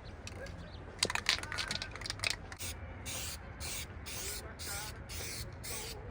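Aerosol spray-paint can: a few sharp clicks about a second in, then short repeated bursts of spray hiss, roughly two a second, as a light coat goes on.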